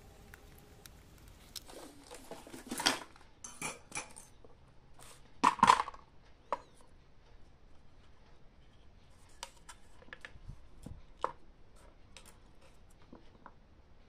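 Small metal tools and electronic parts clicking and clattering on a workbench during wiring and soldering work, with a louder clatter about five and a half seconds in.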